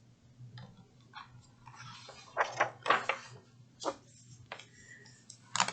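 Pages of a picture book being handled and turned: a few soft rustles and clicks, the loudest about two to three seconds in and just before the end, over a faint steady low hum.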